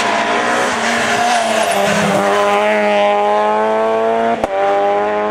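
Peugeot 206 RC rally car's four-cylinder engine running hard at high revs, its note dipping briefly about two seconds in and then climbing steadily as it accelerates. A short click near the end.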